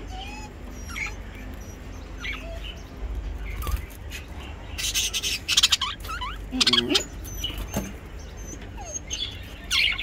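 Budgerigars chirping and chattering in short scattered calls, with louder bursts of harsh squawking about five seconds in, again a second or so later, and near the end.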